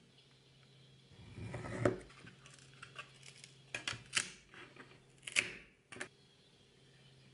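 Thin cedro rosa wood sheets handled and slid across a cutting mat, followed by a few short scraping strokes of a hobby knife scoring the wood, the loudest about two-thirds of the way through. A faint steady hum lies underneath.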